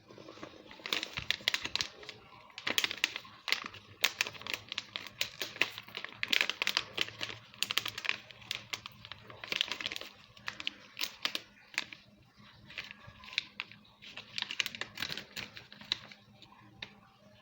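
Hershey's Kisses packaging being crinkled and torn open: crisp crackling in repeated bursts with brief pauses between them.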